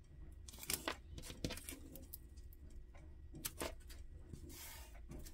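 Faint scattered taps and soft rustling as fingertips smooth thin plastic washi tape down onto a paper planner page, with a brief hiss of the tape rubbing near the end.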